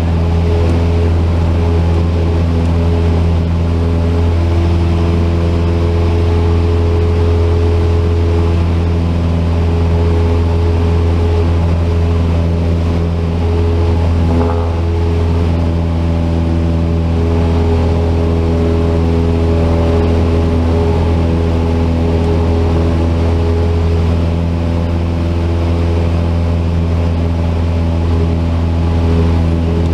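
Cessna 172 piston engine and propeller running steadily in flight: a continuous loud drone with a strong low hum and a few steady tones above it, holding the same pitch.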